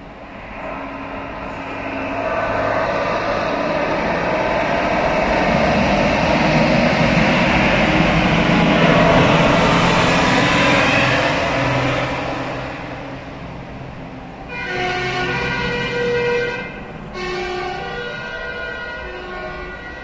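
Fire engine driving past, its engine and tyres swelling to a peak about ten seconds in and then fading. In the last five seconds its horn sounds in alternating steady tones, switching pitch every second or two.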